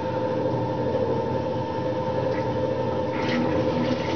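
Metal shaper running: a steady hum from its electric motor and drive, with two short knocks, about three seconds in and again near the end.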